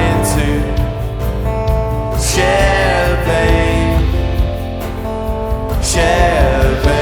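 A band playing a song, guitar to the fore over a steady, full low end, with sustained notes that bend in pitch a couple of times.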